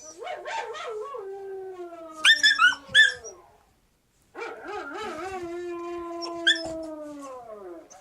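Siberian husky puppy howling: two long howls that each slide down in pitch at the end, the first broken about two seconds in by three loud, sharp, high yelps.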